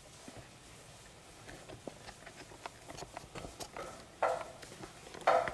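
Wooden spoon stirring and scraping a sugary coconut mixture around a nonstick pot, with many small taps and clicks and two louder scrapes near the end.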